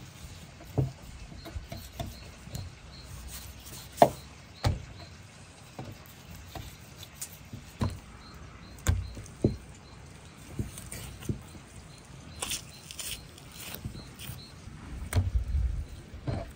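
A knife cutting raw lamb off the bone on a wooden cutting board: irregular knocks and soft thuds of the blade and meat against the board. There is a sharp louder knock about four seconds in and a run of low thuds near the end.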